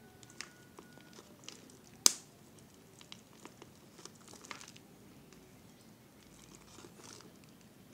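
Thin plastic drink bottle crinkling and clicking as it is handled, with scattered small taps and rustles and one sharp knock about two seconds in.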